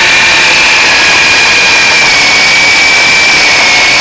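Worx WG322 20V cordless chainsaw with a brushed electric motor running steadily at full speed, a high, steady whine from the motor and chain.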